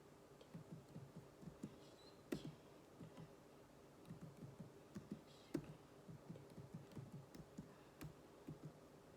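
Computer keyboard being typed on: a faint, uneven run of keystrokes, a few a second, with a few louder clacks among them.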